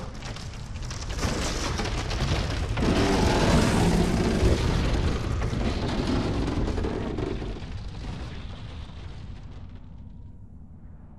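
A loud rumbling, explosion-like sound effect that swells over the first few seconds and then slowly fades away.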